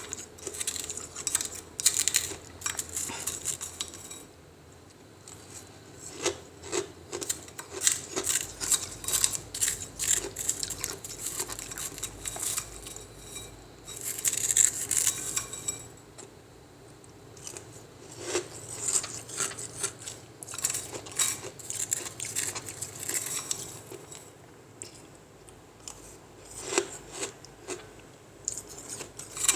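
Freezer ice being scraped and crunched: irregular crisp crackles and scrapes, in clusters with short pauses between them.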